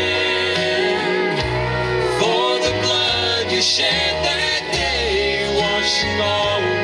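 Country-style gospel music: singing over guitar, with a steady bass line.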